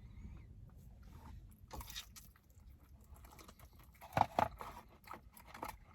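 Biting into and chewing a sticky, sauce-glazed fried chicken wing close to the microphone: soft wet mouth clicks and crunches, loudest a little after four seconds in.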